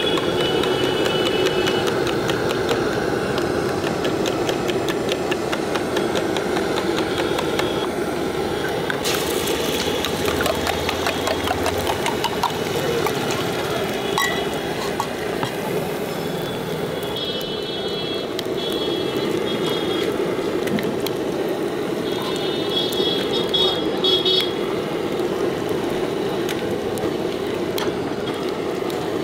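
Street-stall ambience: a steady hum of traffic and engines, with small clicks and clinks of cooking utensils throughout and short high tones twice in the second half.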